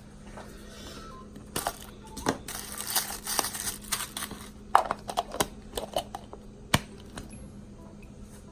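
Plastic packaging and small plastic pieces being handled: crinkling in the middle, with a run of sharp clicks and taps, the loudest a little before the end.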